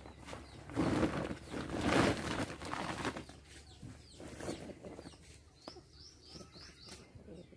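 Dry cement powder pouring out of a woven plastic sack onto a heap, a rushing hiss with rustles of the sack for about two seconds, then quieter rustling. Later comes a quick run of about five short high chirps from a bird.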